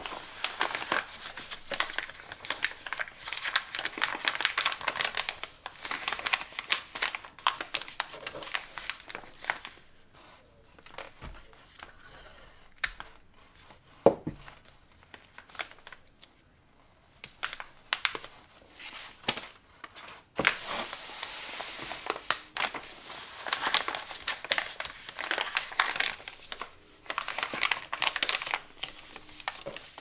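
Kraft paper crinkling and rustling in irregular bursts as it is folded and smoothed by hand around a parcel. A quieter stretch in the middle is broken by one sharp tap about fourteen seconds in.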